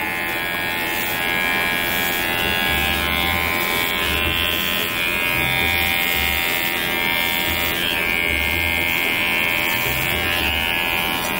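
Electric pet hair clippers with a 3 mm cut buzzing steadily as they trim a chihuahua's fur, the buzz wavering slightly in pitch, with a few soft low knocks.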